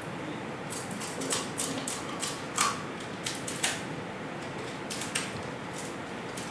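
Kitchen shears snipping and cracking through lobster shell as the legs are cut into small pieces: a dozen or so irregular sharp snaps.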